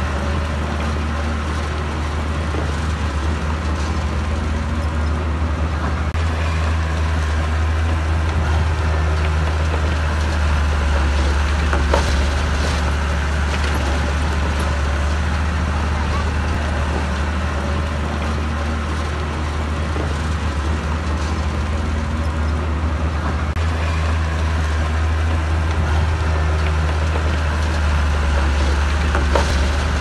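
Heavy diesel engine of earthmoving equipment running steadily with a deep drone, the pitch drifting slowly up and down, and a couple of sharp knocks.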